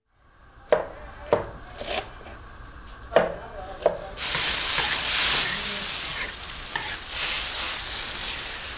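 A few sharp, ringing clanks of cooking utensils, then about four seconds in a loud sizzle as food goes into a hot wok and is stir-fried.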